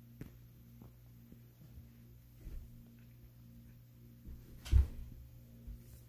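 A child's hands and bare feet thudding on a carpeted floor during a cartwheel, with soft knocks and one loud thump of the landing about five seconds in, over a steady low hum.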